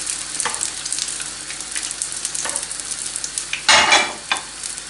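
Batter-coated green beans frying in hot oil in a pan: a steady sizzle with scattered crackles. About three and a half seconds in there is a short, louder burst as metal tongs work the beans in the pan.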